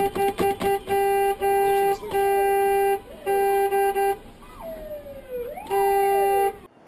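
Car horn honking: a quick string of short beeps, then long held blasts with short breaks between them. Sliding tones that rise and fall fill one gap between the blasts, and the horn cuts off suddenly near the end.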